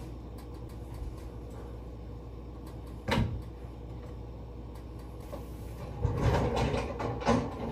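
A kitchen cabinet door knocked open once about three seconds in, then a run of clattering and rummaging in a lower cupboard near the end, over a steady low hum.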